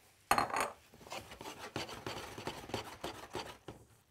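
A utensil scraping and knocking against a wok as fried rice is stir-fried quickly, a fast run of scrapes and clinks that stops shortly before the end.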